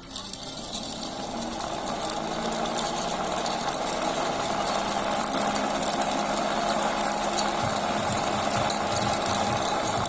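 SsangYong Kyron electric radiator cooling fan running: a steady whirring motor with rushing air that comes in at once and builds a little over the first couple of seconds.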